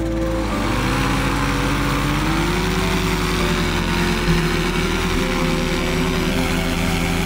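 Paratrike's small propeller engine revving up over the first couple of seconds, then running steadily at high power.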